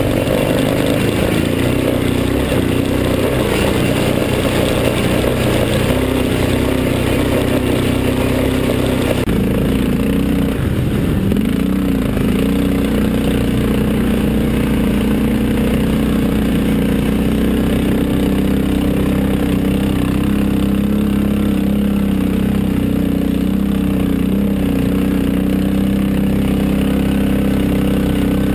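ATV (quad) engine running steadily at a fairly even speed while riding over a rough mountain track. The engine sound changes abruptly about nine seconds in, then holds steady again.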